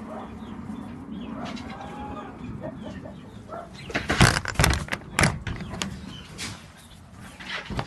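A rooster's faint, soft clucking, then several sharp metallic clacks and rattles about four to five seconds in as the pen door's sliding bolt latch and wire-mesh door are handled.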